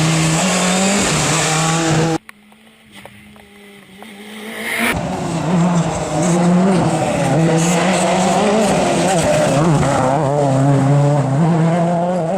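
World Rally Car engine, a 1.6-litre turbocharged four-cylinder, held at high revs, breaking off abruptly about two seconds in. After a quieter stretch, a rally car is heard again, growing louder, with the revs rising and falling as it is driven hard.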